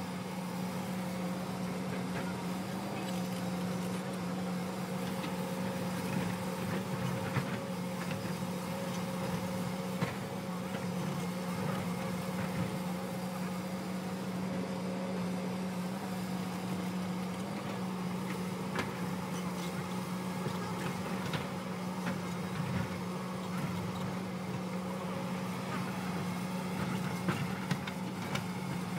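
Hyundai crawler excavator's diesel engine running steadily with a constant low drone while the machine digs into a rocky hillside, with scattered knocks of the bucket against rock and stones.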